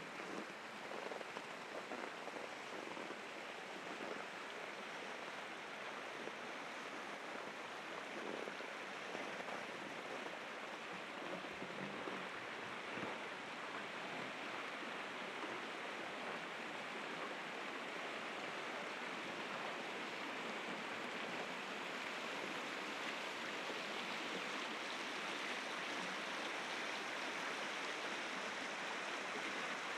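Steady rushing of river rapids, growing slightly louder in the second half.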